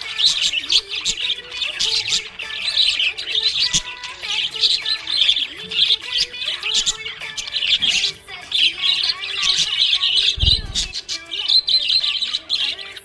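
Small pet parrots chirping and twittering without a break, with many quick chirps overlapping. A brief low thump comes about ten and a half seconds in.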